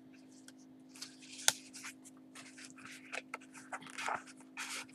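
Paper pages and card of a handmade journal rustling and sliding as they are handled and turned, in short scratchy strokes, with one sharp click about a second and a half in. A faint steady hum runs underneath.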